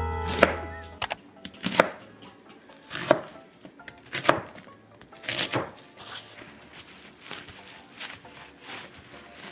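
Kitchen knife chopping onion on a cutting board: separate cuts roughly a second apart, with fainter knocks later on. A tune fades out during the first second.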